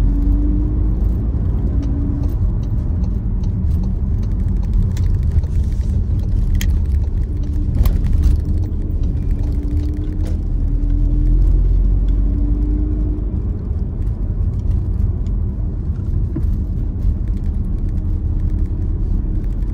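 Steady low rumble of a car's engine and tyre noise heard from inside the cabin while driving, with a faint wavering hum and a few light clicks about seven to ten seconds in.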